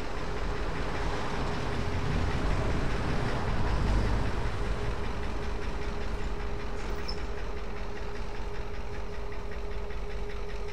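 Two diesel-electric locomotives running as they pull a train slowly, an even engine beat with a steady whine over it, swelling a little a few seconds in.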